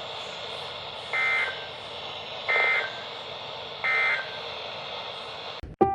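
Weather radio receiver sounding the EAS end-of-message signal: three short bursts of SAME digital data tones, about 1.4 s apart, over steady radio hiss. The audio cuts off abruptly near the end.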